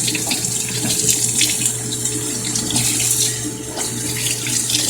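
Water running steadily from a tap as a kitten is bathed under it.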